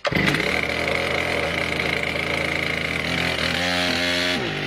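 A 122cc two-stroke chainsaw engine running at a steady speed, its pitch dropping sharply near the end as it comes off the throttle.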